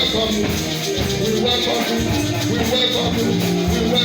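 Live church band music with a steady beat, shaker and bass, playing during worship.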